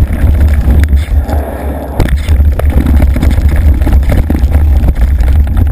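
Wind buffeting the microphone of a handlebar-mounted GoPro on a mountain bike ridden fast over rough ground, with the bike rattling and knocking. It eases off for a moment about a second in, then a sharp knock comes about two seconds in.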